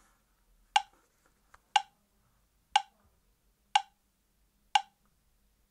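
Sync-test ticks from a latency test video played through the Blitzwolf BW-ANC5 Bluetooth headphones: five short, sharp ticks, evenly spaced about one second apart.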